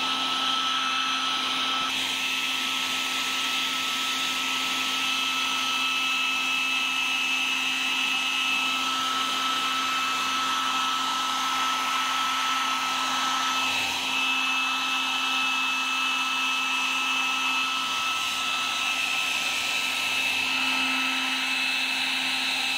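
Hair dryer running steadily: a constant blowing noise with a steady high whine.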